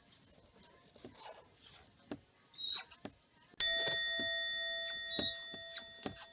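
A single bell chime sound effect, the 'chiin' of a small Buddhist rin bowl, struck once about halfway through and ringing down slowly, a comic sign of dejection. Faint scattered tapping and scratching sound before and under it.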